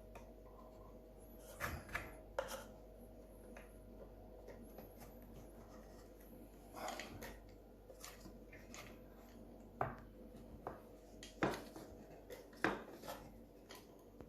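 Scattered small knocks and clicks of cuckoo clock parts being handled during bellows removal, with a faint steady hum underneath.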